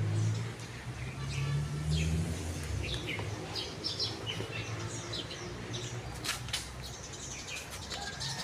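Small birds chirping repeatedly in short calls. A low rumble sits under the first two and a half seconds, and a few sharp clicks come about six seconds in.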